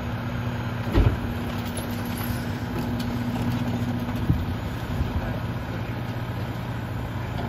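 Rear-loader garbage truck with a Heil 5000 body idling steadily at the curb, a low even engine note throughout. A sharp thump about a second in and a smaller knock a little past four seconds.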